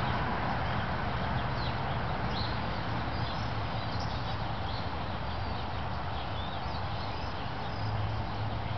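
Small birds chirping outdoors, short high calls scattered throughout, over a steady background of noise and a low hum.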